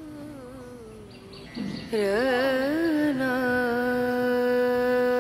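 A long held musical note comes in about two seconds in. Its pitch wavers and swoops at first, then it holds steady for about four seconds. Before it there are quieter gliding melodic lines.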